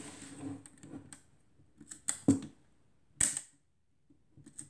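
Compur leaf shutter of a KW Etui folding camera being set to 1/50 s, then cocked and fired. A rub of handling near the start, then a few sharp mechanical clicks, the loudest about two seconds in. At this fast speed the shutter still works.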